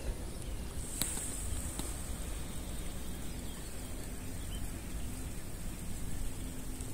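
Quiet outdoor background: a steady low rumble and hiss, joined about a second in by a thin, steady high hiss, with a couple of faint clicks.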